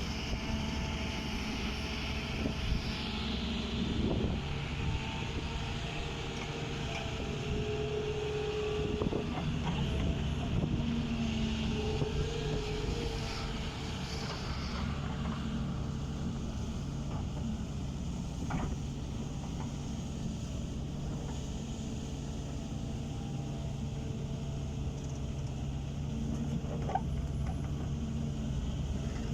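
Diesel engine of a working wheeled excavator running steadily under load, with brief higher tones that come and go in the first half and a few sharp knocks.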